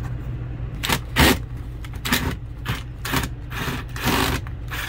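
Short, irregular scrapes and clatters from work on an RV refrigerator's plastic trim and its rusty lower mounting screws, by hand and with a cordless driver, over a steady low hum.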